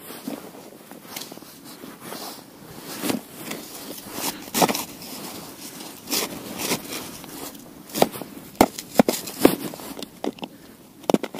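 Footsteps crunching in snow on river ice, irregular. Sharper, louder crunches and knocks come in the second half.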